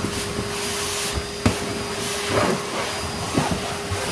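Wet/dry shop vacuum running steadily, its motor giving a constant hiss with a steady whine, as it sucks up wet debris and wood chips. A sharp knock about a second and a half in.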